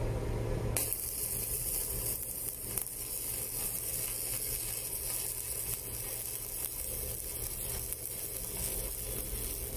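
Sasuke LCD 220S stick (MMA) welder arc burning a 3.2 mm electrode. The arc strikes about a second in, sizzles steadily, and breaks off near the end.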